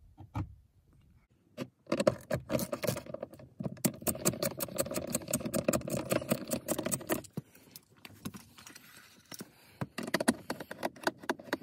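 Ratchet wrench clicking as it loosens a T30 Torx sun visor mounting bolt: a dense run of rapid metallic clicks lasting several seconds, then sparser clicks near the end.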